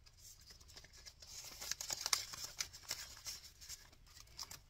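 Paper banknotes and clear plastic binder pouches rustling and crinkling as cash is handled and pressed into a pouch, with many short, irregular crackles and light taps.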